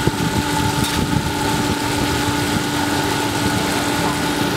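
Small electric blower running steadily with a constant hum, blowing air onto the coals of a charcoal cooking stove.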